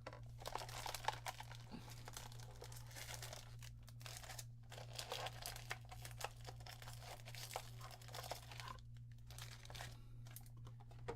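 Foil trading-card booster packs crinkling and rustling as they are handled and lifted out of the booster box, a run of irregular crackles with a brief lull near the end.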